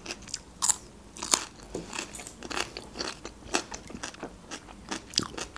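Close-miked biting and chewing of crisp fresh green onion: a quick run of crunches and wet mouth clicks, about two or three a second.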